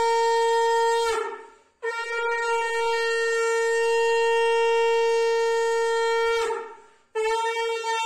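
Conch shell (shankha) blown in long, steady, single-pitched blasts of Hindu worship: one blast fades out about a second in, a second lasts about five seconds, and a third begins near the end.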